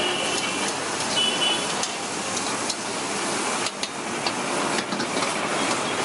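Roadside street noise: a steady wash of passing traffic, with a few brief high tones and clicks.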